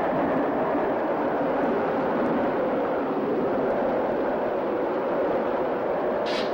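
Steady rushing noise of hurricane-force storm wind. A sharp crack comes right at the end.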